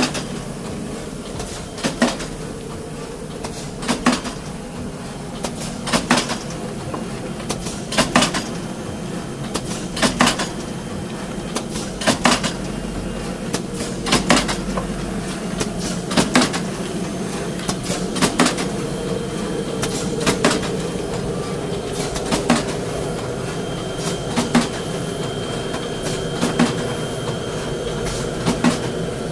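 Automatic polypropylene-film packaging machine running, a steady hum with a double clack of its mechanism about every two seconds as it cycles through stacks of paper forms.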